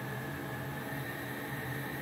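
Hose-fed soldering torch burning with a steady hiss, its flame heating a copper plank before solder is drawn in.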